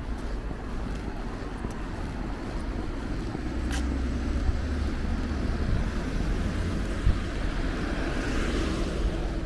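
Outdoor street sound with wind rumbling on the microphone. A car passes, its tyre and engine noise swelling in the second half and peaking near the end. A single sharp click about four seconds in.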